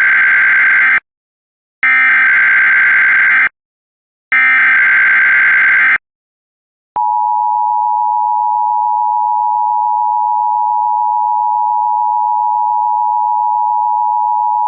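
Emergency Alert System header: three short bursts of SAME digital data tones, each followed by a brief gap. About a second later the steady two-tone EAS attention signal starts and holds for about eight seconds, announcing an emergency alert.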